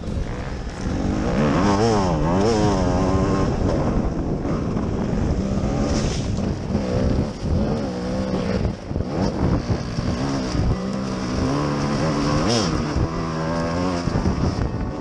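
Enduro dirt bike engine being ridden hard, its pitch rising and falling again and again as the throttle is opened and closed, with quick up-and-down revs about two seconds in.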